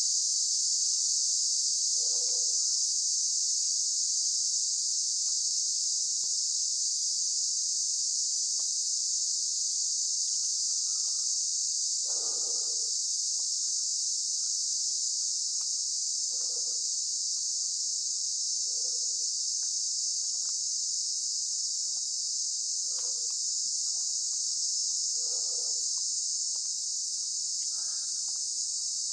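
A dense insect chorus keeps up a steady, unbroken high-pitched buzz, with soft, muffled footsteps on a leaf-littered dirt trail every couple of seconds.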